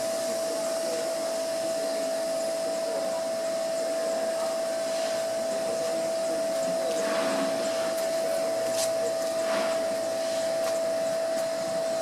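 Steady mechanical hum with one constant tone, with a few faint short sounds over it midway.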